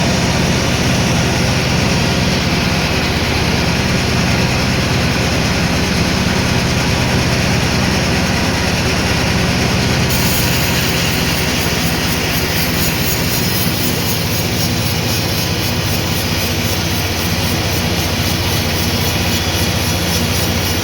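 Sawmill machinery running steadily and loudly: a machine drone with a dense noise over it. The sound changes slightly about halfway through.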